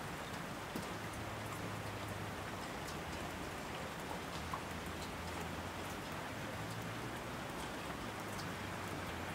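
Steady rain: an even hiss with scattered sharper drop hits.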